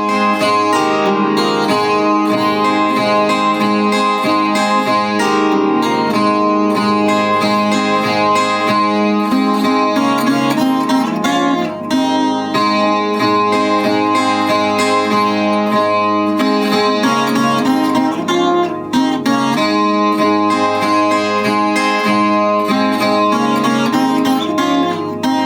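Chilean guitarrón, a 25-string plucked instrument, playing a lively instrumental melody with many strings ringing together over a steady low bass note.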